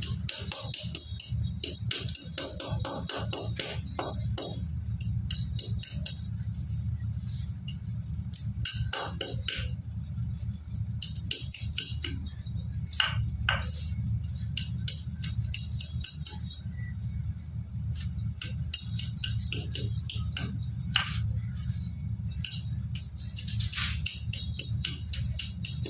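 Broken slate pencil pieces crunching and clinking against each other as they are squeezed and rubbed by hand inside a plastic zip-lock bag, with the bag crinkling: a dense run of irregular small crackles and clicks.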